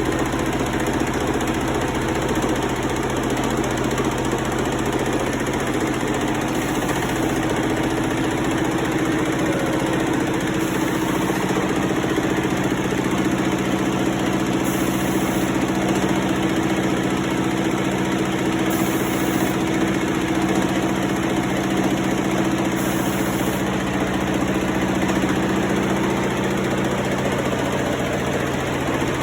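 Industrial machine running steadily with a constant hum, and a brief high hiss that comes back about every four seconds as it cycles.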